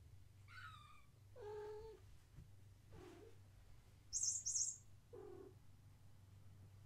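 Cats meowing in short calls: a high kitten mew about half a second in, then several lower meows, and two sharp, very high squeaks a little after halfway, which are the loudest sounds.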